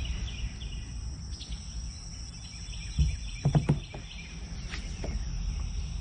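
Steady chorus of insects, crickets or similar, holding one high note throughout, over a low rumble. A few sharp knocks come close together about three seconds in, louder than the rest.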